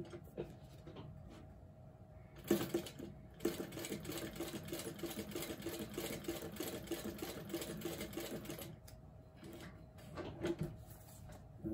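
Industrial sewing machine stitching a small heart in one even run of about six seconds, starting about two and a half seconds in and stopping near the end.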